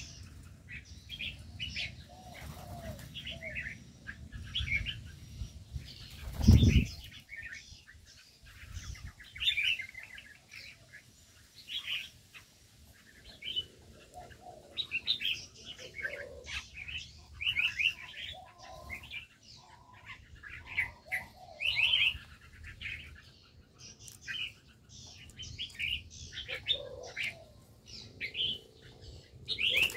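Small birds chirping over and over in short, high calls, with a few lower calls among them. About six and a half seconds in there is a brief, loud, low rush.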